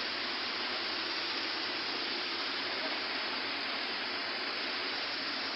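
Repaired slimline treadmill running steadily, its motor and belt giving an even, unbroken hiss.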